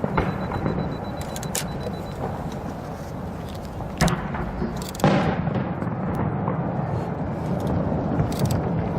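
Fireworks bursting: two booms about a second apart, the second trailing off in a long echo, over a steady low rumble.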